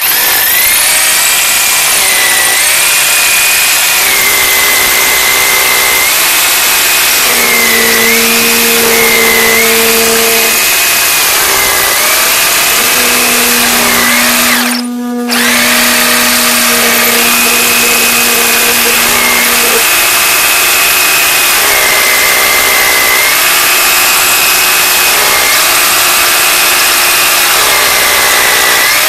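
Bosch hammer drill boring into a load-bearing wall's footing, running continuously with its whine wavering up and down in pitch. It stops briefly about halfway through, then carries on.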